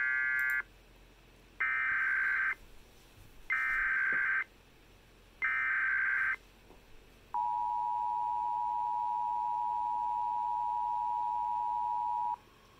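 Emergency Alert System tones: four short bursts of screeching data tone (the SAME header) about a second apart, then the steady two-tone attention signal for about five seconds that cuts off abruptly. The sequence announces the broadcast alert message that follows.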